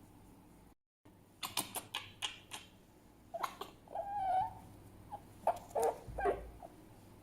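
Fennec fox calling: a quick run of short, sharp high calls, then a longer pitched call about four seconds in, and more short calls near the end.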